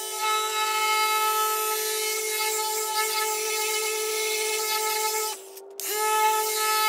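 Milwaukee 15 mm random orbital polisher running steadily, its pad and cutting compound working oxidized paint on a truck fender. The motor hum drops out briefly near the end, then starts again.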